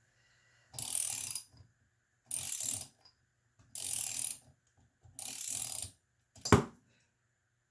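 Ratchet wrench clicking in four strokes about a second and a half apart, backing a rusty nut off a stud, then one sharp clack near the end.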